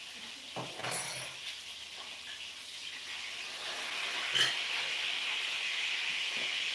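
Steady sizzling hiss of food frying, growing louder about three seconds in, with a couple of light clicks.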